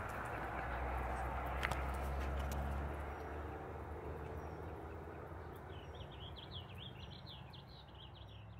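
Birds chirping outdoors in a quick series of short notes over the last few seconds, over a low rumble that fills the first few seconds. The whole sound fades steadily.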